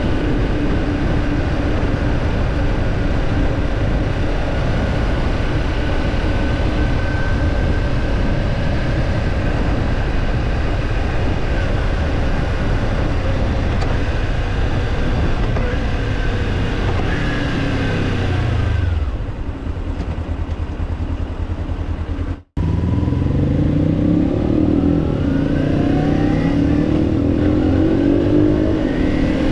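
Kawasaki Ninja 250's parallel-twin engine heard from onboard, with wind rush. It runs steadily at speed, then its note falls as it slows to a low idle. After a brief dropout it revs up in rising sweeps, gear after gear, as it pulls away.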